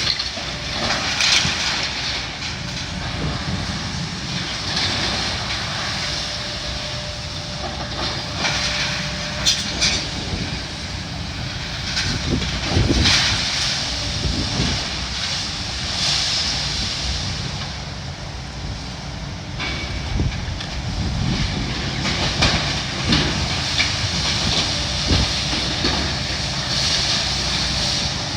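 Heavy demolition machinery running steadily, with repeated crashes and clanks as metal beams and roof debris are pulled down.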